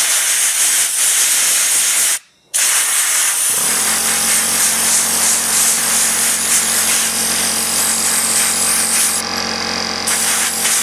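Bucket-feed bead blaster hissing as compressed air drives 80-grit glass bead against the top flat of a stainless steel revolver, with a brief silence about two seconds in. About three and a half seconds in, the pancake air compressor's motor kicks on and runs steadily under the hiss.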